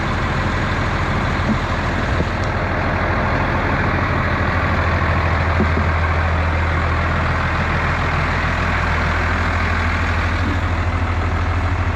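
Heavy vehicle engine running steadily with a low, even drone that grows stronger around the middle.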